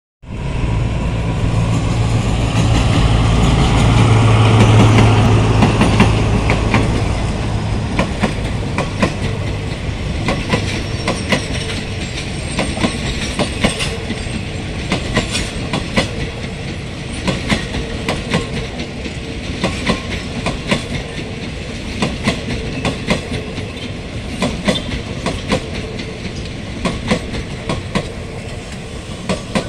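Alsthom 4305 diesel-electric locomotive passing, its engine hum building and loudest about five seconds in, then fading. Its train of passenger coaches follows with a long run of wheel clacks over the rail joints, coming in clusters.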